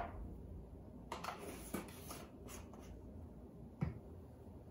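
A few faint, scattered light clicks and taps of a measuring spoon and spice jar being handled over a plastic mixing bowl, with one sharper click near the end.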